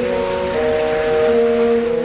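Slow background music of long held notes forming chords that shift every second or so, over a steady rushing hiss.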